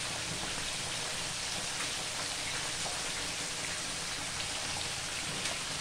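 Whole chicken deep-frying in hot oil, a steady sizzle.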